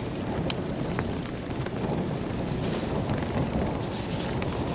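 Wind buffeting the microphone on a small boat at sea, a steady rumbling rush with a few faint clicks.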